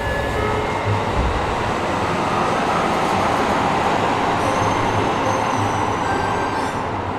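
Tokyo Metro 05 series subway car running, heard from inside the car: a loud, steady rumble of wheels on rail with a few faint high tones over it, swelling slightly in the middle.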